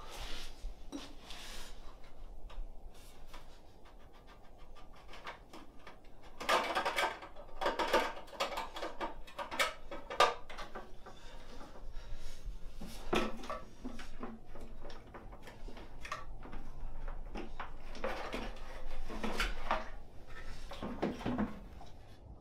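Handling noises from working on a portable generator: knocks, clinks and rubbing of metal and plastic as its frame is gripped, its fuel cap is turned and a plastic fuel can is handled. There are denser bursts of clatter about six to eleven seconds in and again toward the end.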